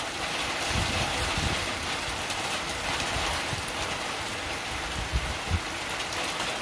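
Heavy rain pouring down hard and steady, a dense hiss of drops on the ground, with a few low thumps about a second in and again near the end.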